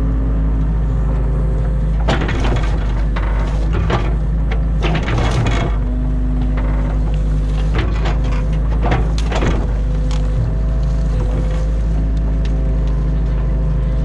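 New Holland Kobelco E50.2 mini excavator's diesel engine and hydraulics running steadily under load, while the bucket crushes and snaps through a pile of branches and brush, a string of cracks and crunches from about two to ten seconds in.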